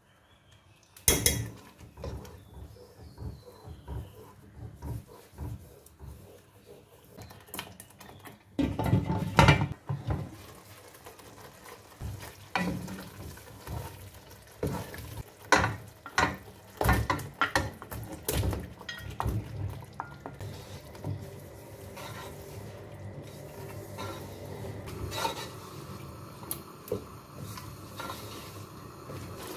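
Wooden spoon stirring chicken pieces in tomato sauce in a nonstick pot, with irregular scrapes and knocks against the pot, the loudest cluster about nine seconds in, over a low sizzle from the pan.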